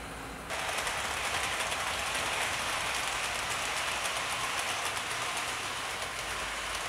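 OO gauge model trains running with their coaches: a steady whirring rush of motors and wheels on the track, which steps up in level about half a second in.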